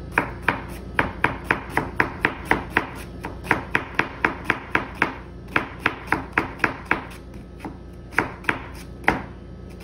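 Chef's knife slicing an onion on a plastic cutting board: quick, even taps of the blade on the board, about four a second, with two short breaks, then a few slower cuts near the end.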